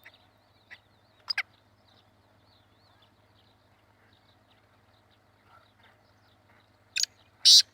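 Black francolin calling: one short harsh note about a second in, then near the end a run of loud, grating notes that carries on. Faint high chirps of other birds sound in between.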